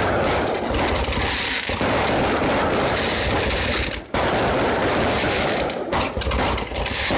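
Fireworks going off in a dense, continuous rapid-fire barrage of bangs and crackles, with a brief break about four seconds in.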